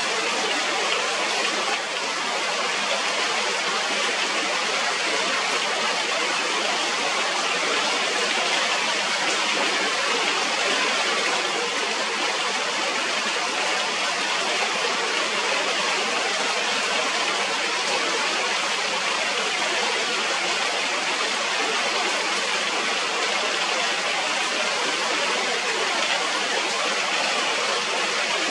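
Heavy rain pouring steadily, an even hiss that holds at the same level throughout.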